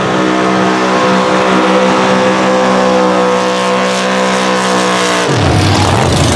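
Supercharged V8 of a first-generation Chevrolet Camaro drag car held at steady high revs in a burnout, rear tyres spinning. About five seconds in the revs drop suddenly as the throttle comes off, leaving a lower, rough engine sound.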